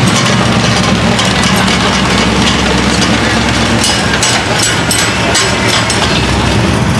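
Customized vintage Willys pickup's engine running through a tall open exhaust stack as the truck drives slowly past. Its loud, steady low rumble holds with no revving.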